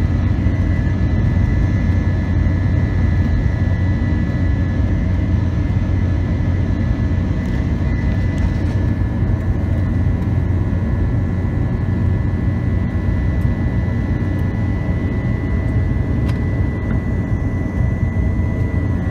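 Airliner's jet engines at climb power just after takeoff, heard from inside the cabin: a steady low rumble with a thin, steady high whine over it.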